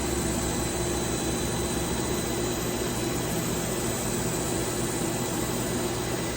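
Work Sharp Ken Onion Edition belt sharpener with its grinding attachment running steadily on a fine 5000-grit belt while a kitchen knife edge is worked back and forth across it to remove the burr. The motor's hum and the belt's hiss hold an even level.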